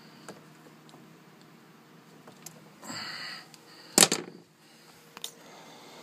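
Handling noises from working with refrigeration gauge hoses and gear: a few light clicks, a short rustle about three seconds in, and one sharp, loud knock about four seconds in.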